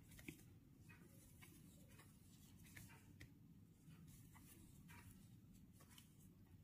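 Near silence with faint, irregular small ticks and scratches of a metal crochet hook and yarn as double crochet stitches are worked.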